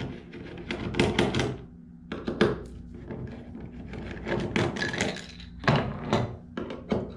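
Skid plates being taken off the underside of a plastic kayak hull, with a series of knocks and clicks from handling the parts against the hull.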